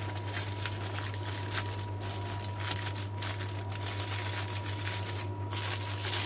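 Aluminium foil crinkling and rustling as it is folded and crimped around a whole fish, over a steady low electrical hum.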